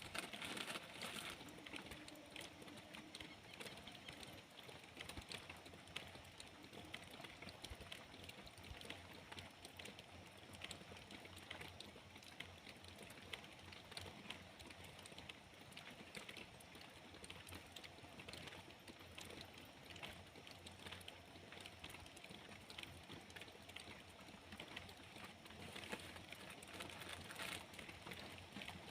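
Rain falling: a faint, steady patter of many small drops.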